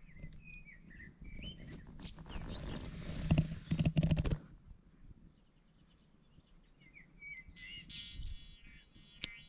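Small songbirds chirping in short gliding calls, near the start and again from about three quarters of the way in. From about two to four seconds in, a loud burst of rustling and clattering with sharp clicks covers them.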